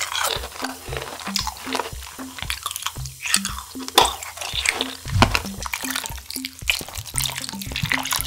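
Background music with a steady repeating bass note, over close-up sounds of sipping a drink from a plastic bottle, soft clicks and, near the end, a drink poured over ice cubes in a hollowed-out watermelon.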